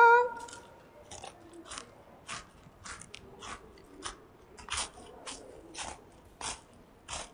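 A person eating potato chips, with small crisp crunches about twice a second.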